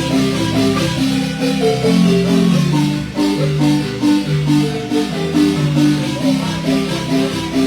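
Marimba music: a fast run of struck mallet notes over a bass line, played as a son.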